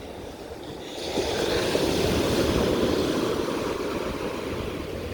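Ocean surf: a wave rushing in that swells about a second in and fades away over the next few seconds.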